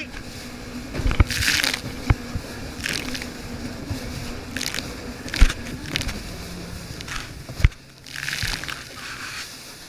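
Yamaha WaveRunner jet ski running at speed over chop, its hull slapping the waves with sharp thumps and bursts of spray hissing past. The engine note drops about six seconds in as it eases off.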